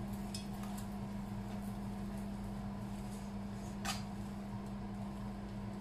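Faint clicks of metal tongs against a nonstick frying pan as spaghetti is tossed, one a little louder about four seconds in, over a steady low hum.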